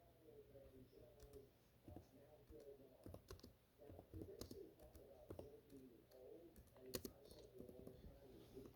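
Near silence, with faint scattered clicks of a computer keyboard and mouse.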